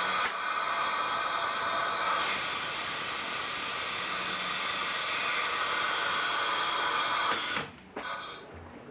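A steady, loud hiss like rushing air, with faint steady tones in it, stopping suddenly about seven and a half seconds in.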